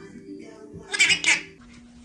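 A Senegal parrot calling twice, two short loud calls about a second in, one right after the other.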